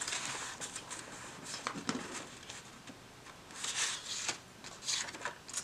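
Paper index cards being picked up and handled against a binder's pages, rustling and scraping, with two louder rustles a little past halfway.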